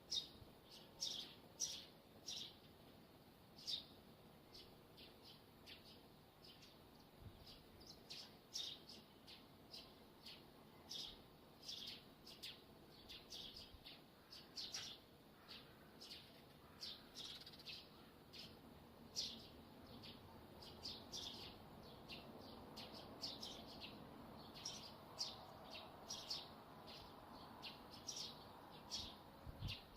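Neighbour's TV antenna guy wire squeaking in the wind: a run of short, high chirps, one or two a second at uneven intervals, over a faint rush of wind that swells a little in the second half.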